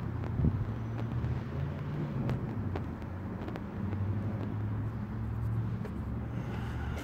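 Steady low hum of a motor vehicle engine idling, with a few faint clicks over it.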